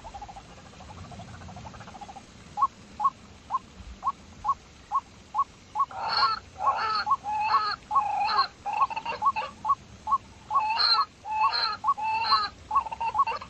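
Animal calls. Short pips come about twice a second, starting a couple of seconds in. About six seconds in, louder, harsher calls join them and keep going in a steady rhythm.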